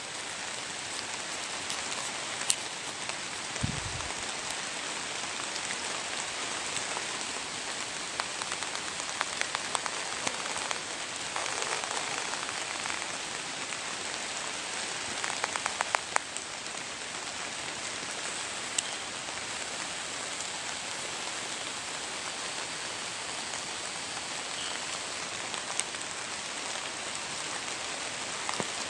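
Steady rain falling, an even hiss with scattered light ticks of drops, and a brief low thump about four seconds in.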